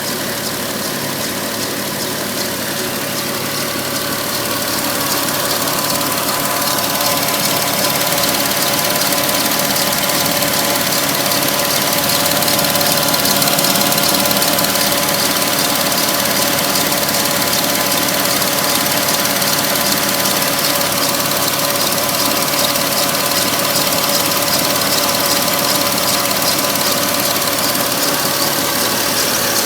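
Porsche 997 Carrera S 3.8-litre flat-six engine idling steadily, a sound the owner finds strange and suspects is not right. It grows a little louder a few seconds in, then holds steady.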